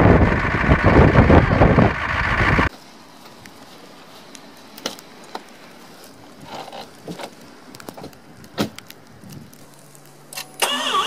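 A diesel pickup's exhaust running loud just after a cold start, cut off suddenly about two and a half seconds in. Then it is quiet but for a few light clicks and taps, until a louder sound starts just before the end.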